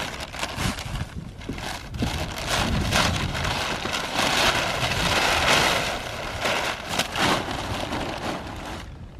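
Brown kraft packing paper crinkling and rustling as it is handled and pulled out of a cardboard box, loudest around the middle.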